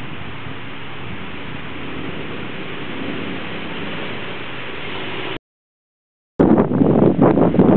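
A steady hiss, with the Jeep Grand Cherokee ZJ's engine faint beneath it as the Jeep crawls slowly off-road. About five seconds in the sound cuts out for a second, then gusty wind buffets the microphone.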